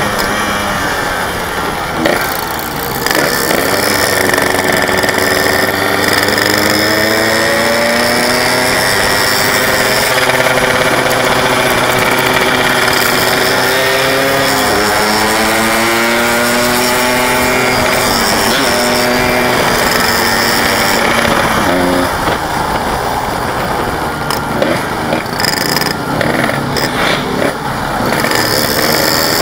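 Yamaha RX-King 135cc single-cylinder two-stroke motorcycle engine running while riding. Its pitch rises and falls as the throttle opens and closes through the gears, and it turns choppy near the end.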